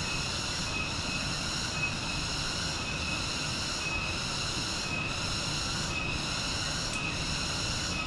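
Dense jungle insect chorus at daybreak: a steady high-pitched drone in several layered pitches, dipping briefly about once a second.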